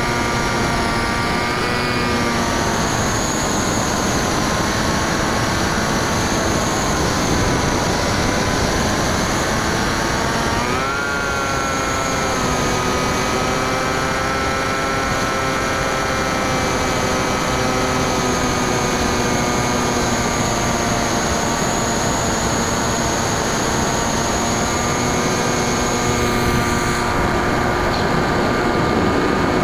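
Electric brushless motor and propeller of a Bixler 2 RC plane running steadily in flight, a droning whine with a noise of wind rushing past the airframe. The pitch sags a little around a third of the way in, then rises sharply about 11 seconds in as the motor speeds up, and holds there.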